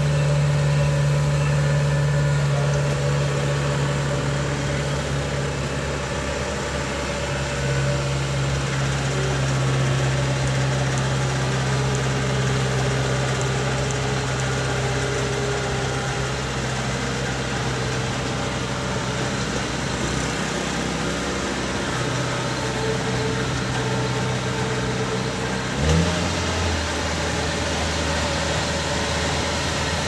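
Kubota DC70 Plus combine harvester's diesel engine running steadily. About 26 seconds in there is a brief knock and the engine's hum drops lower.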